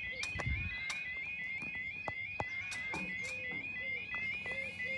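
Level crossing audible warning alarm sounding: a high warble repeating about three times a second over a lower repeating warble, the signal that the barriers are moving. Both stop just after the end.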